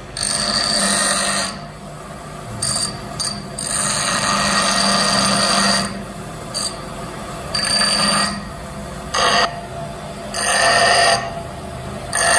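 Electric bench grinder running with a steady hum while the end of a steel rod is pressed against its stone wheel, giving a high, ringing grinding screech that starts and stops about eight times as the rod is worked in repeated passes.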